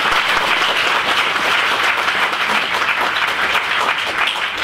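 Audience applauding, a dense run of many hands clapping that begins to thin out near the end.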